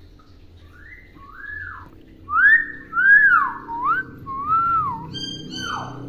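Hill myna whistling a run of about seven clear notes, each rising and falling in pitch, loudest a couple of seconds in. Near the end come a few short, higher, steadier notes and one falling note.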